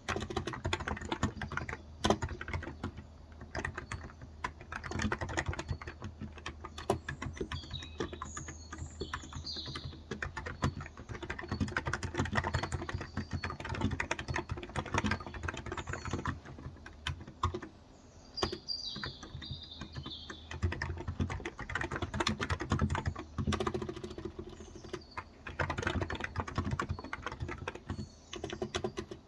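Steady, fast typing on a Cox Endeavour electro-capacitive (Topre-style) keyboard with light 35 g switches, dense irregular key clicks. Birds chirp in the background twice, about a third of the way in and again past the middle.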